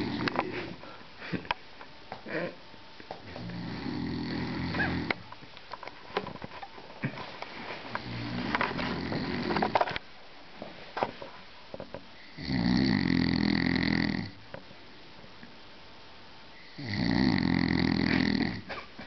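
A person snoring, one rasping snore about every four seconds. The last two snores are the loudest.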